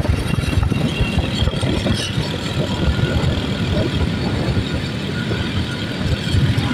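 Riding along on a motorcycle at speed: wind buffeting the microphone in an uneven low rumble, over the bike's engine and road noise.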